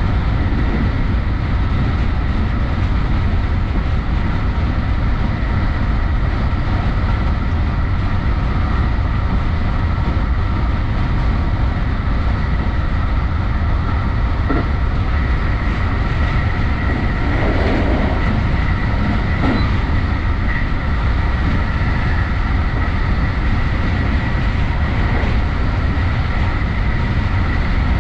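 JR West Special Rapid electric commuter train running at speed, heard from the front of the lead car: steady rolling noise of wheels on rails with a thin, steady high whine. About two-thirds of the way through there is a brief louder clatter.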